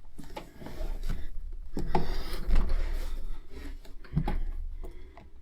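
Rubbing and scraping handling noise with a few light knocks, from hands working an opened iPod.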